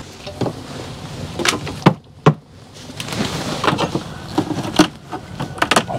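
Wooden hive frames knocking and clattering as they are handled in and around a steam wax melter barrel: irregular sharp knocks, with a brief lull about two seconds in.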